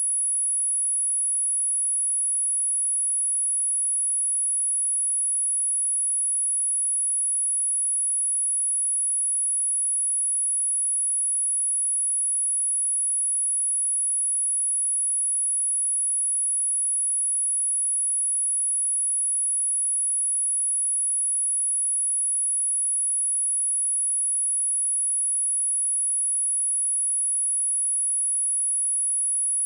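A pure 10,228 Hz sine-wave test tone, one steady very high-pitched whistle held at constant pitch and level.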